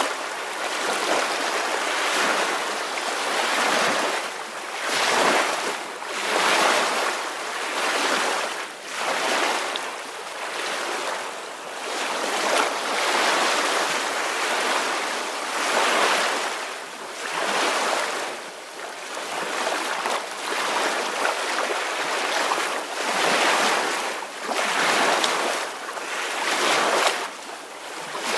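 Soft ocean waves washing in, a continuous hiss of surf that swells and ebbs every second or two.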